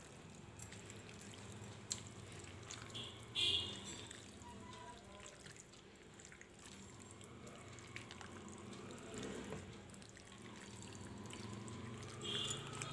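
Faint wet squishing of a hand kneading raw chicken pieces through a thick marinade in a bowl, with a few small clicks and a brief high clink about three and a half seconds in.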